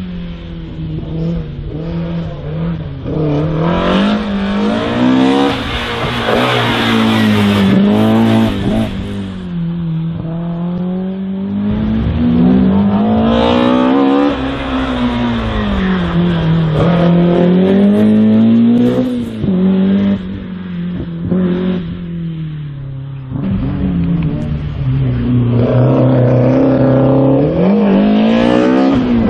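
Race car engine on a slalom course, revving up and dropping back again and again as the car accelerates and brakes between the gates, its pitch rising and falling every two to four seconds.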